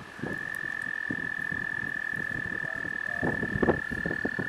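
A frog or toad giving one long, unbroken high trill at a steady pitch, with rapid clicking joining in about three seconds in.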